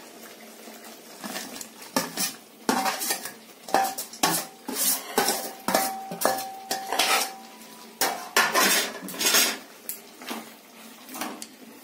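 Steel bowl and steel plate clattering and scraping against the rim of a kadai as chopped capsicum, onion and paneer cubes are tipped into masala gravy. Repeated sharp clinks, with one ringing on for a few seconds midway.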